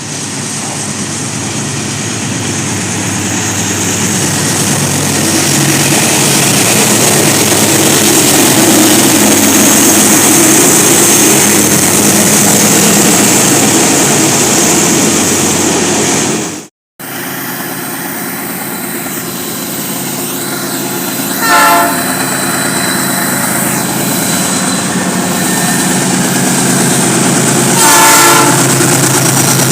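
Train passing with a steady loud rumble of wagons on the rails. After a cut, a train keeps running while its horn sounds two short blasts, about six seconds apart.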